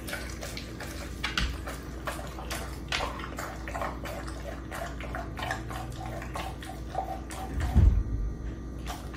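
A large dog chewing raw meat: wet smacking and irregular crunching clicks, with one louder low thump near the end.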